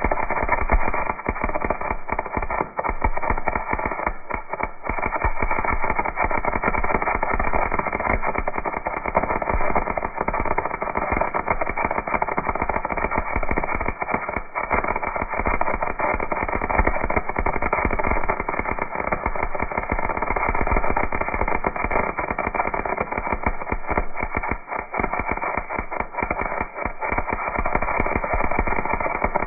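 MIG welder arc crackling and sputtering steadily as it lays down a bead, with a few brief dips.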